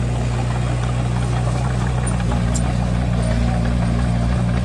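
Bulldozer's diesel engine running at a steady speed, a low even drone.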